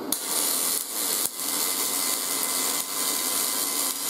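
MIG welding arc on aluminum from a YesWelder MIG250 Pro wire-feed welder. It strikes just after the start and then runs as a steady, crackling hiss with a few brief dips.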